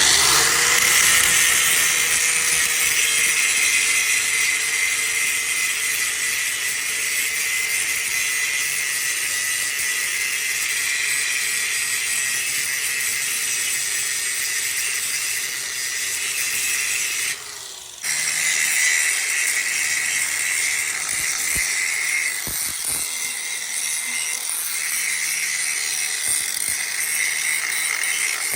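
Electric arc welding: the arc gives a steady hiss as it burns. About two-thirds of the way through, the arc breaks off for about half a second, then is struck again.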